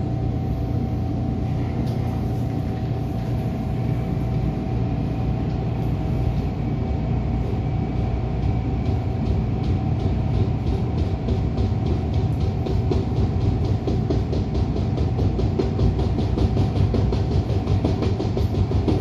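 Interior sound of an MTR Tung Chung Line A-Train (Adtranz-CAF EMU) pulling out of a station: a steady low running rumble with a faint drive whine, and a rhythmic ticking that starts about a third of the way in and gets faster as the train gathers speed.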